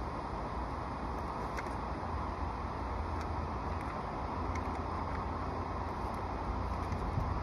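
Steady low rumbling outdoor background noise, like wind or traffic, with a few faint ticks.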